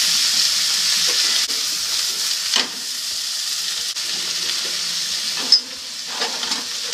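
Sliced vegetables and pork sizzling in a hot frying pan with a splash of hot water, stirred with long cooking chopsticks. Two sharp clicks of the chopsticks against the pan, about two and a half and five and a half seconds in, after which the sizzle eases a little.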